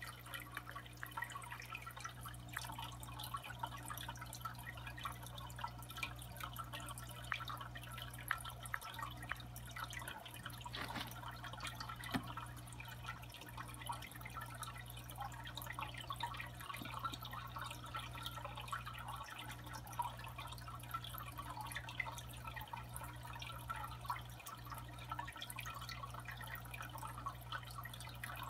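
Faint water dripping in small irregular ticks over a steady low electrical hum.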